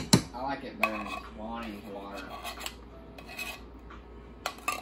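A spoon scraping and clinking against the inside of a nearly empty metal can of Campbell's tomato soup, clearing out the last of the soup. There are sharp clinks at the start and a quick run of them near the end, with quieter scraping between.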